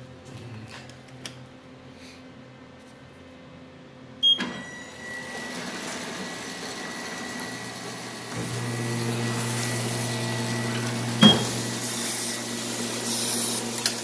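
Ryobi 3302 offset press and its envelope feeder being started up: a click about four seconds in, then steady machine running that steps up to a louder low hum about eight seconds in as the press drives. A sharp clack comes about three seconds later.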